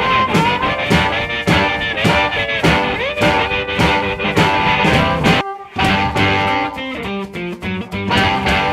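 Background music: a guitar-led rock song with a steady drum beat, breaking off briefly about five and a half seconds in before the guitar carries on more sparsely.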